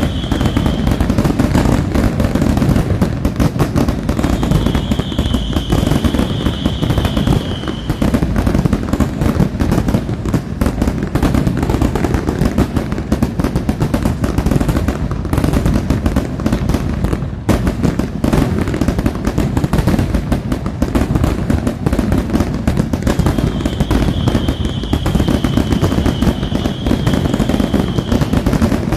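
Fireworks display going off continuously: a dense, unbroken run of bangs and crackling, like rapid gunfire. A steady high whistle comes in three times, each lasting a few seconds.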